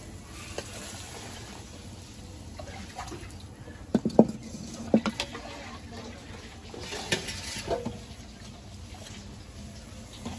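Metal ladle scraping and knocking against a wok while lentil dal is scooped out and poured into an aluminium pot, with liquid splashing. The loudest knocks come in a quick cluster about four to five seconds in, and a few more come around seven seconds.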